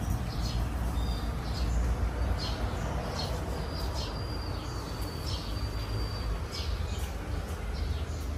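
Birds chirping in short repeated calls, with one thin high whistle held for about two seconds around the middle, over a steady low rumble.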